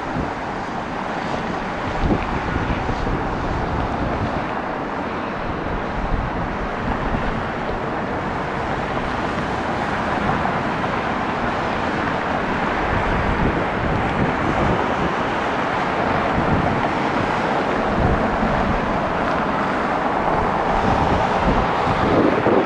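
Antonov An-124's four D-18T turbofan engines running, a steady rushing noise that slowly grows louder, with gusty wind buffeting the microphone.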